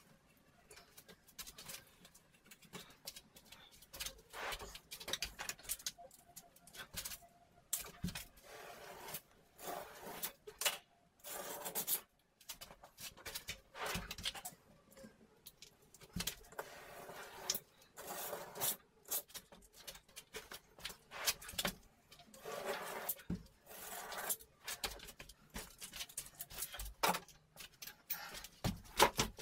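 Irregular scraping, rubbing and light tapping from hand work on drywall, coming in short bursts with brief pauses.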